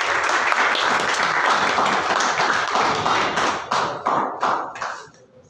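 Audience applauding, a dense round of hand claps that thins to a few scattered claps and stops about five seconds in.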